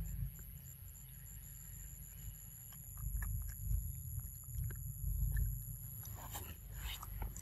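Outdoor ambience: a low steady rumble with scattered faint clicks, and two short rustles near the end as a pig-tailed macaque moves right up close to the microphone.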